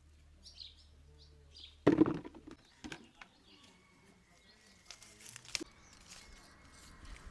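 A small bird chirping several short high notes, then a single loud knock about two seconds in, followed by a few lighter clicks.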